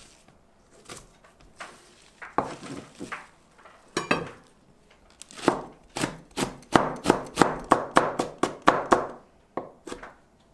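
Chef's knife chopping on a plastic cutting board. A few scattered cuts come first, then from about five seconds in a quick, even run of strikes, roughly four or five a second, as green and red chili peppers are sliced thin.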